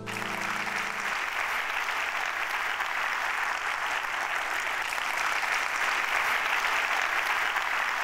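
Large audience applauding steadily, with the last notes of the intro music fading out about a second in.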